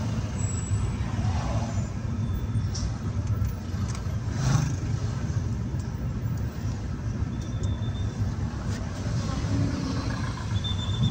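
Steady road noise heard from inside a moving car's cabin: engine and tyres running at a low rumble in traffic, with a brief bump about four and a half seconds in.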